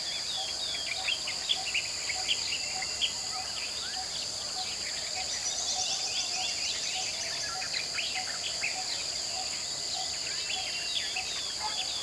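Tropical forest dawn chorus: many birds chirping and trilling over a steady, high-pitched insect drone, with a lower note repeating about once a second.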